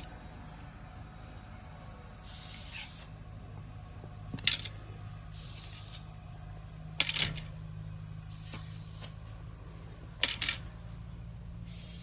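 Three sharp metallic clicks a few seconds apart, with soft scraping in between: the metal field tips being unscrewed from carbon arrows and set down one by one.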